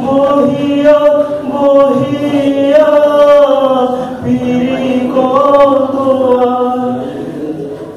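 A young man singing solo and unaccompanied into a handheld microphone, drawing out long held notes that slide up and down. The voice fades a little near the end.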